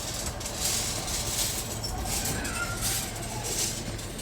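Demolition machinery: a steady low engine hum with several bouts of scraping and clattering rubble.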